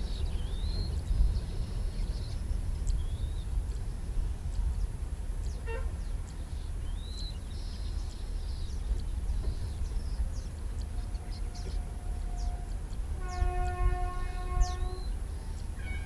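Distant Indian Railways electric locomotive horn: a faint steady tone about eleven seconds in, then a fuller, louder blast for about two seconds near the end. A steady low rumble and short bird chirps run underneath.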